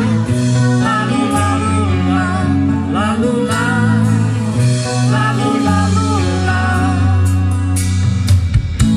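A live rock band plays through a PA: electric guitar, bass, keyboards and drums under a woman's singing. Sharp drum and cymbal hits come near the end.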